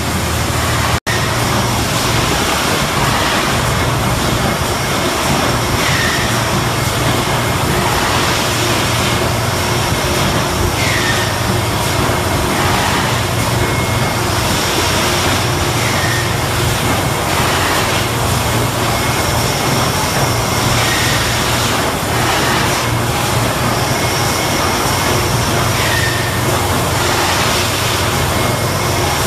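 Thermoforming production machinery running in a plastics plant: a loud, steady mechanical din of low hum and hiss. Short falling chirps recur about every five seconds. The sound cuts out for an instant about a second in.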